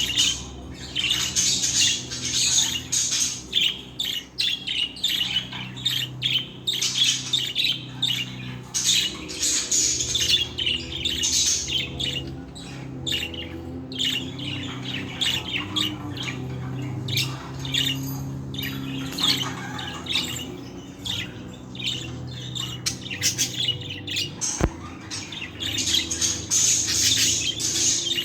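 Budgerigars chattering and warbling without a break, a busy mix of chirps and squawks, with a steady low hum underneath.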